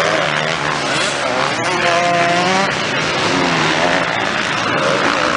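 Motocross bikes' engines racing, several at once, their pitch rising and falling as they rev and pass, over a steady loud wash of engine noise.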